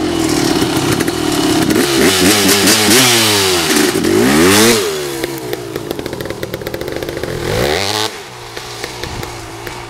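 Kawasaki KX500 two-stroke single-cylinder dirt bike revving hard through the gears as it accelerates past close by. Its pitch drops as it passes about halfway through, and the engine then fades as the bike pulls away.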